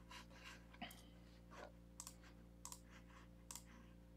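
Faint, irregularly spaced clicks of a computer mouse and keyboard, several over a few seconds, against near silence.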